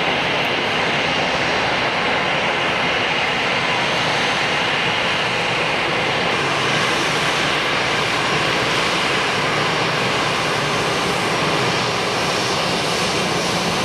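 Airbus A320-214 jet airliner's CFM56 turbofan engines running loud and steady, a dense rushing jet noise that holds at one level throughout.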